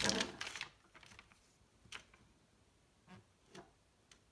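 Paper rustling as a folded instruction sheet is smoothed flat by hand on a table, dying away within the first second, followed by a few faint taps.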